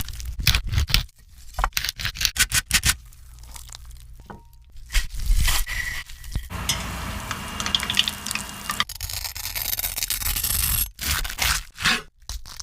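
Close-miked crunching, tearing and scraping of crispy deep-fried bacon-wrapped cheese: a run of sharp crackles, then a longer stretch of dense steady crackling in the middle, then more crisp snaps near the end.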